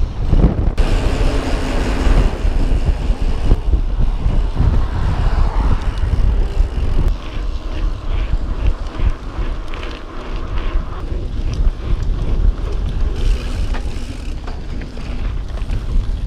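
Wind buffeting the microphone of a camera on a moving mountain bike, a steady, loud low rumble as the bike rides along.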